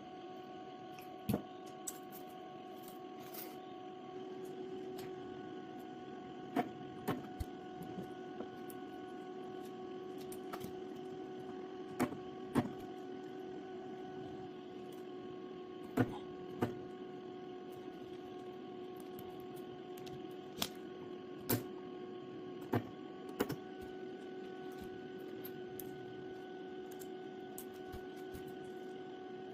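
Steady electrical hum with sharp clicks and taps at irregular intervals, about a dozen in all, from small parts being handled.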